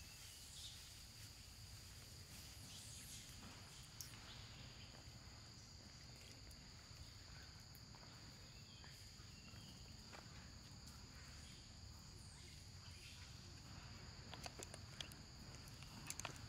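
Faint steady insect chorus in forest, two high held tones running without a break, with a few soft clicks and taps scattered through, more of them near the end.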